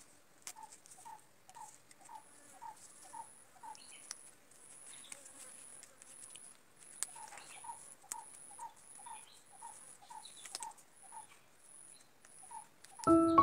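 Faint rustling and light clicks of coconut palm leaf strips being woven by hand, under a steady high chirp that repeats about every two-thirds of a second. Music comes in at the very end.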